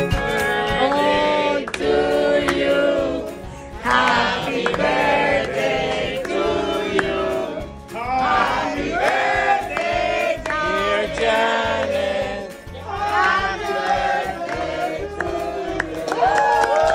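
Several people singing a birthday song together in phrases, with short breaks between lines.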